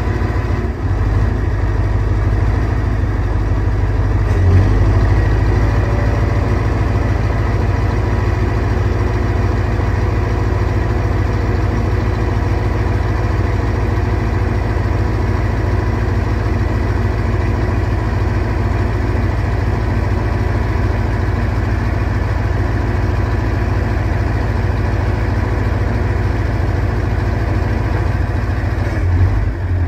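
Scania R143's 14-litre V8 diesel engine idling steadily, with a brief rise in level about four and a half seconds in.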